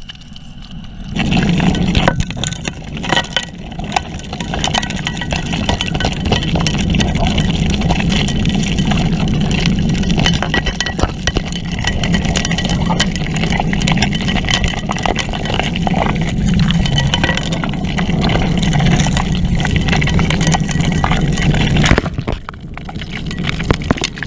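Keene 4-inch gold dredge running, heard underwater: a steady low drone from its engine and pump, with stones and gravel clicking as they are sucked into the suction nozzle. It starts about a second in and drops away shortly before the end.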